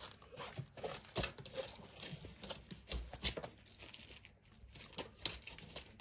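Packaging of a large cardboard shipping box being handled during unboxing: irregular tearing, crinkling and scraping with many scattered clicks.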